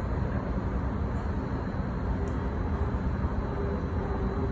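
Steady low rumble heard from inside a commuter train car, with a faint steady hum joining in the second half.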